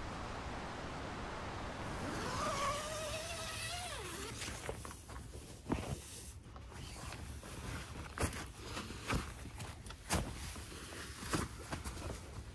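A tent door zipper is pulled in a wavering buzz lasting about two seconds. It is followed by scattered knocks and rustles about a second apart as someone steps out over dry leaf litter.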